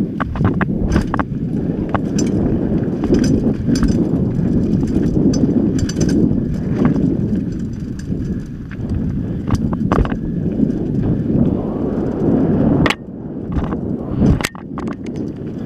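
Mountain bike riding fast down rocky dirt singletrack: steady rumble of tyres and wind on the microphone, broken by frequent sharp clacks and rattles as the bike jolts over rocks and roots, with two hard clacks near the end.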